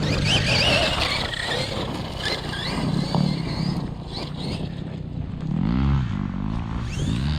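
Brushless electric RC truck being driven hard, its motor whining up and down in pitch. A dirt bike engine revs up and down nearby about two thirds of the way in and again near the end.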